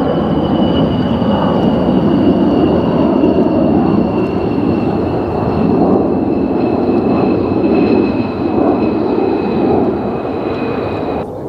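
F-15J Eagle fighter's twin Pratt & Whitney F100 turbofans running during the landing rollout: loud jet noise with a high turbine whine that slowly falls in pitch. The sound stops abruptly near the end.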